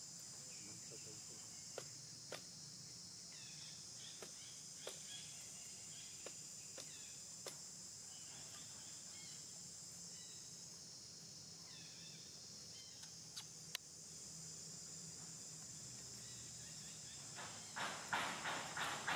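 Steady high-pitched insect drone, with scattered small clicks. Near the end comes a short burst of rustling and crunching in dry leaf litter.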